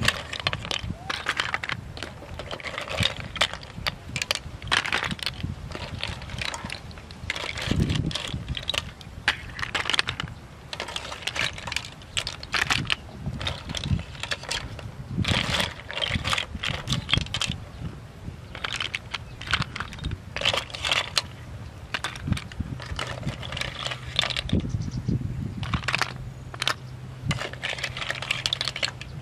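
Snail shells clicking and clinking as they are picked by hand out of a metal pot and dropped onto a plate, many small irregular clicks throughout.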